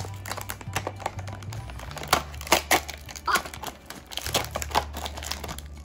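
Foil lid being peeled off a plastic toy capsule, crinkling and crackling in many quick sharp bursts. Background music's low bass notes run underneath.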